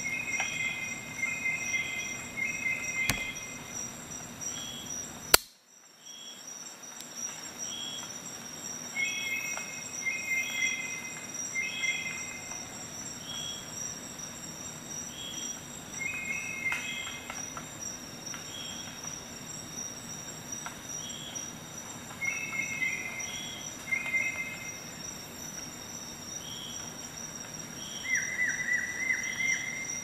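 Insects chirping: short high chirps in little clusters, with a fainter chirp repeating about once a second, over a faint steady high whine. A sharp click about five seconds in, then a moment of near quiet.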